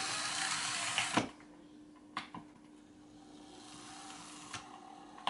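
Sound decoder of a Märklin BR 216 model diesel locomotive playing through its small speaker: a loud hiss that cuts off with a click about a second in, then a faint steady tone with a few soft clicks.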